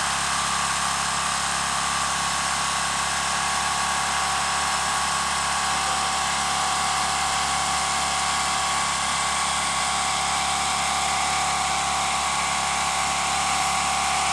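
Steady, unchanging machine drone with a constant hiss over it.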